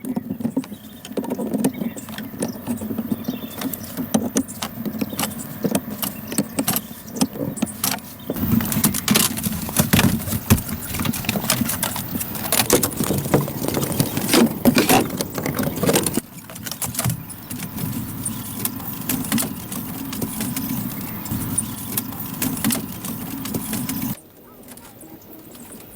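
Dense clicking, knocking and rattling of hand work with tools and building materials, changing abruptly about a third and two thirds of the way through and turning quieter near the end.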